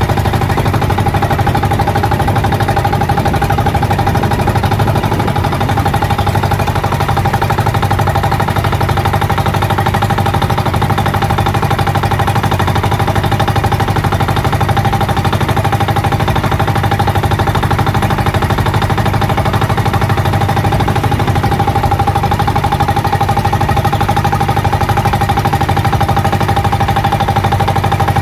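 The engine of a motorized outrigger boat running steadily, a fast, even putter of firing pulses with a steady tone on top.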